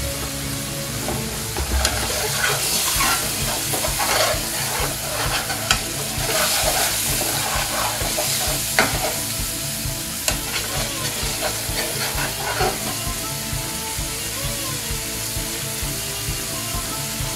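Lamb curry sizzling in a frying pan over a high gas flame, stirred with a long-handled metal chef's spoon that scrapes and clicks against the pan; the stirring stops about two-thirds of the way through while the sizzling goes on.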